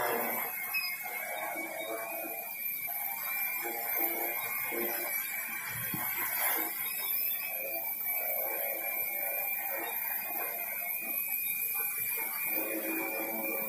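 Large quadcopter drone hovering, its four motors and propellers making a steady high whine with a buzz that wavers slightly.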